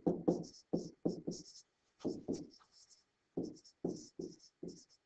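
Stylus writing on a tablet: a quick run of short scratching pen strokes with brief pauses between words.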